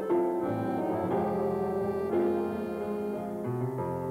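Instrumental music of held keyboard chords that change about once a second.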